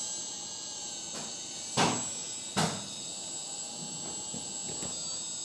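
1/14-scale RC hydraulic excavator working its arm and bucket, with a steady high-pitched whine from its pump and drive. Two loud clunks come close together about two seconds in, with a few lighter clicks later.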